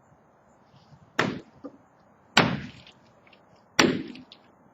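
Three heavy sledgehammer blows striking the silo during its demolition, each a sharp crack with a short decaying tail, a little over a second apart.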